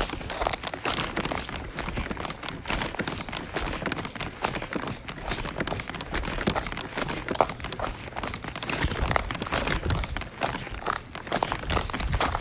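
Irregular crinkling and rustling close to the microphone, a dense run of small crackles with no steady tone.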